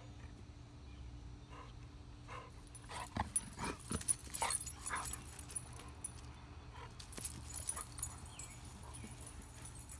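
Yellow Labradors playing, with a dog giving short cries in quick clusters about three seconds in and again around seven to eight seconds, over a steady low hum.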